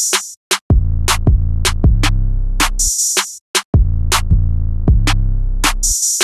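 Instrumental trap beat programmed on a drum machine: long, deep 808 bass notes under fast hi-hat ticks and snare hits, looping about every three seconds.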